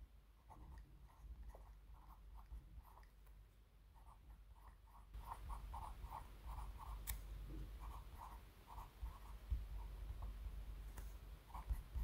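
A Rotring 800 0.5 mm mechanical pencil writing numbers on paper: a run of short scratching strokes of the lead, one per pen stroke. The sound gets louder about five seconds in.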